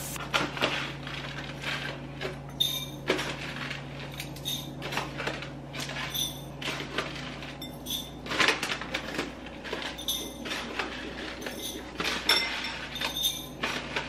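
Uncooked jasmine rice being poured from a plastic bag into glass bowls: irregular rustles and rattles of dry grain and crinkling plastic, with light clinks of glass now and then.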